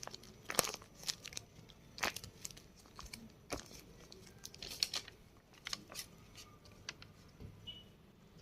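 Blind-bag packaging crinkling and tearing as it is handled and opened: irregular sharp crackles that grow sparser near the end.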